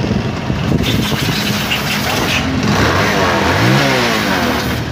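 Kawasaki Rouser 180's single-cylinder four-stroke engine running after a tune-up and carburetor cleaning, with a short rev about three seconds in.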